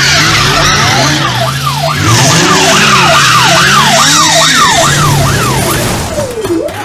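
Emergency vehicle siren in a fast yelp, its pitch sweeping up and down about twice a second over a steady low hum and hiss. Near the end it changes to a slower, lower up-and-down wail.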